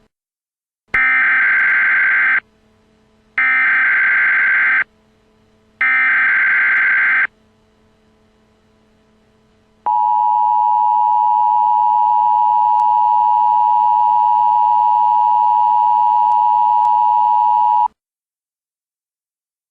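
Emergency Alert System signal: three screeching digital header bursts of about a second and a half each, then a long steady attention tone of about eight seconds that cuts off abruptly. It announces a tornado warning.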